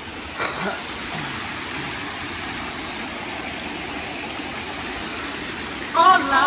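Steady rush and splash of water from a pool fountain pouring into a swimming pool. Music starts again near the end.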